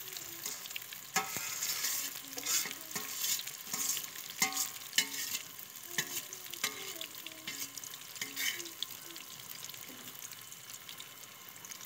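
Soaked semolina sizzling in hot ghee as it is tipped from a steel bowl into a pan on a gas stove, with clinks and scrapes of a steel spoon against the pan as it is stirred in. The sizzle eases somewhat in the last few seconds.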